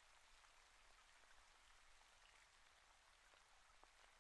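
Near silence: a very faint, steady hiss.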